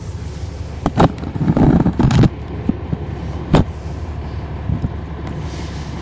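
Cummins ISL9 diesel engine of a NABI transit bus running steadily, heard from the rear seats. A few sharp knocks come about a second in and again about three and a half seconds in, with a louder rattling stretch around one and a half to two seconds in.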